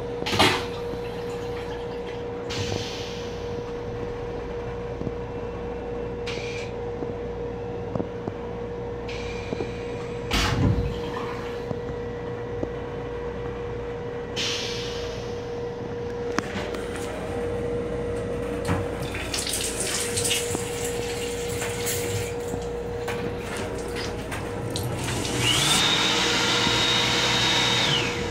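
Inside the restroom of an M7 electric railcar: a steady hum with a low rumble, broken by a few knocks and rattles. Near the end, a louder rushing sound with a steady high whine runs for about two and a half seconds, then cuts off suddenly.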